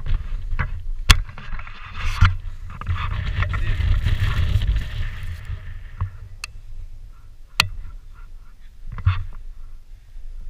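Wind buffeting the microphone of a handheld action camera on a hike over rocks, with scattered sharp clicks and scrapes from footsteps and handling.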